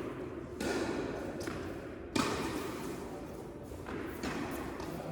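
Tennis ball struck by rackets during a rally, about three sharp hits, each trailing off in a long echo of the indoor hall, with voices in the background.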